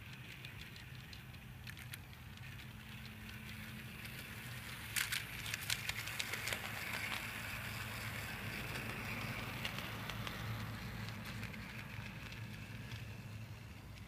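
Battery-powered Bachmann G-scale hand car running on garden railway track: its small electric motor and gears whir, growing louder as it passes close by midway, with a run of sharp clicks about five seconds in.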